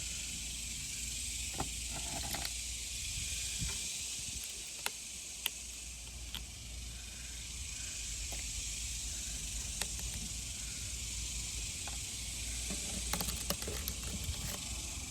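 Steady high-pitched hiss with a low hum beneath it, and a few faint light clicks and taps from small objects being handled.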